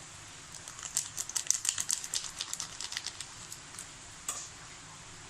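Irregular light crackling and clicking from a bowl of hot coconut oil with crushed camphor just stirred in. It runs for about two and a half seconds from about a second in, then one more click near the end.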